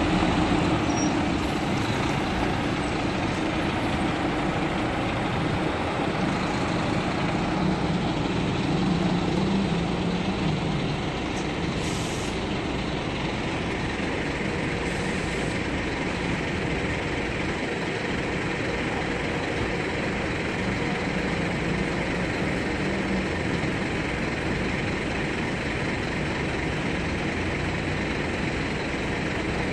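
Diesel engines of Marcopolo intercity coaches running as the buses pull slowly through the terminal yard. The engine sound is louder over the first ten seconds and then settles to a steady run, with a short hiss about twelve seconds in.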